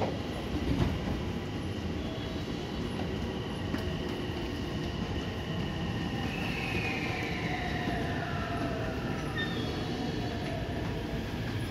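JR West 223 series electric train pulling out of the platform: a steady rumble of wheels and motors, with a thin electric whine from the traction equipment that glides downward in pitch around the middle.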